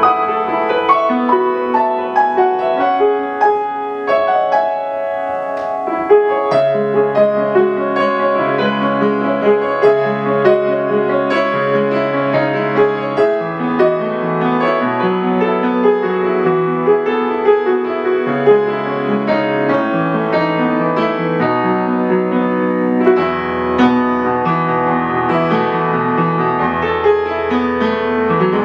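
Solo piano playing a new-age piece: a steady stream of melody notes over sustained chords. Bass notes come in about six seconds in, and deeper bass notes join near the end.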